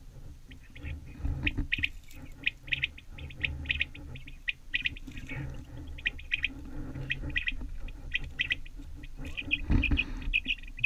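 Quail calls: short high whistled notes in clusters of two or three, repeated about once a second, over low rustling and handling noise, with a louder brief rustle near the end.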